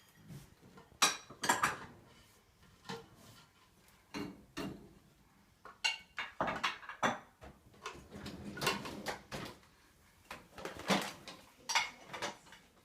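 Metal silverware clinking and clattering as it is taken out of a dishwasher's cutlery basket and handled, in an irregular string of separate clinks, with the loudest about a second in and again near the end.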